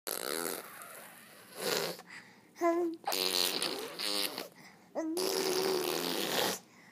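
Eight-month-old baby making vocal noises: breathy, spluttering bursts and short held voiced notes. The longest note runs about a second and a half, near the end.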